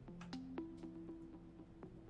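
Quiet background music: a slow run of single notes, each struck and then held, overlapping one another.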